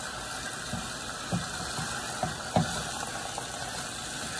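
Diced chicken breast sizzling steadily as it sears in a skillet over turned-up heat. A wooden spoon stirs it, knocking against the pan a few times, loudest about two and a half seconds in.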